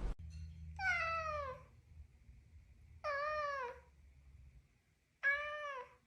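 A domestic cat meowing three times, about two seconds apart. Each meow lasts under a second and slides down in pitch at its end.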